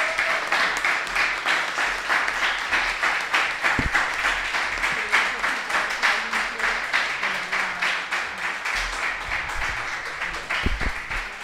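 Audience applauding steadily. A low knock sounds about four seconds in and two more near the end.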